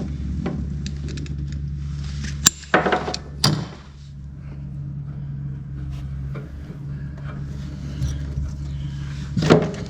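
Workbench handling noises: a few sharp clicks and clatters of parts and tools, one about two and a half seconds in, one about a second later and one near the end, over a steady low hum.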